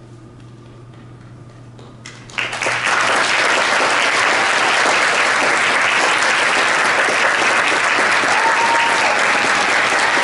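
Audience applause breaks out suddenly about two seconds in, after a brief quiet lull with a faint low hum, and then carries on steadily and loudly.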